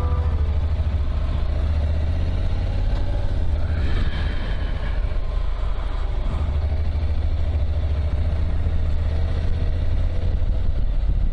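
Motorcycle riding along a road, heard from a bike-mounted camera: a steady low engine drone mixed with wind rumble on the microphone.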